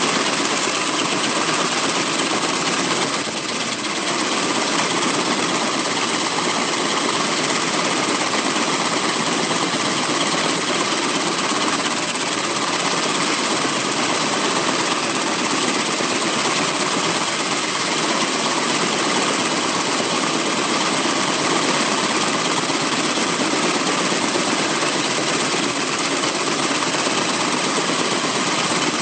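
Kaman K-MAX intermeshing-rotor helicopter running steadily on the ground, its turbine engine and two rotors turning.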